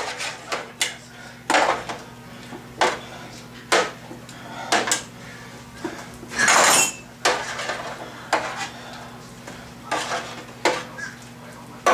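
Metal spoon knocking and scraping against a metal roasting pan while scooping vegetables out of the poaching liquid: irregular clinks about once a second, with one longer, louder scrape near the middle.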